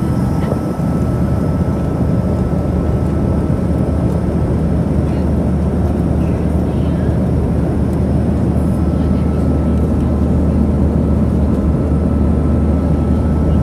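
Steady cabin noise of a Boeing 737-900ER in flight: the low drone of its CFM56-7B engines and rushing airflow, heard from a seat over the wing. A faint steady whine runs through it.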